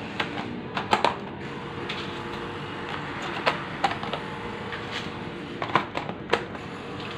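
Snap-on lids being pressed shut onto clear plastic food containers: scattered sharp plastic clicks and clacks, a few seconds apart, over a steady background noise.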